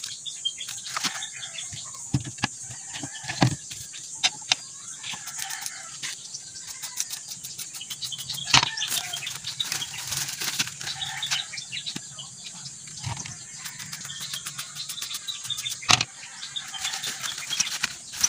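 Rustling and crackling of a woven plastic sack and plastic-wrapped foam float bundles being handled and packed into it: a steady run of irregular sharp crinkles and clicks, with louder cracks about halfway through and again near the end.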